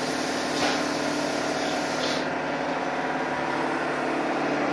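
Graco Merkur X48 air-operated paint sprayer running with a steady mechanical hum, and the hiss of paint spraying from the gun, which stops about two seconds in. A short burst of hiss about half a second in.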